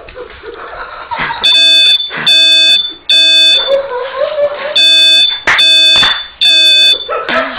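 Electronic alarm beeping in groups of three long, loud beeps, two groups with a short pause between them, the first starting about a second and a half in. This three-beep pattern is the one used by smoke alarms.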